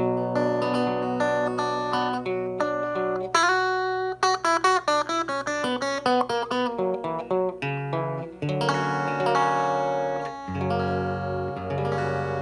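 Electric guitar played through the McGrath Mini amplifier with its gain turned back up: held chords, then a quick run of single notes about three seconds in, then more ringing chords.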